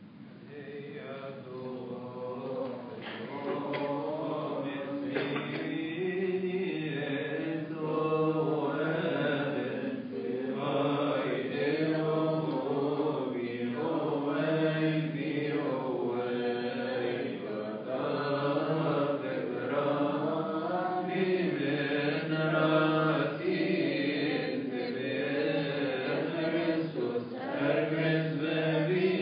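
Voices chanting a Coptic church hymn, with long notes that wander up and down in pitch. The chant starts softly about a second in and grows louder within a few seconds.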